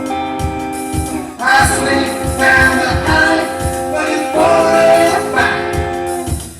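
A song playing, with singing over a steady bass beat of about two beats a second; the voice comes in about a second and a half in.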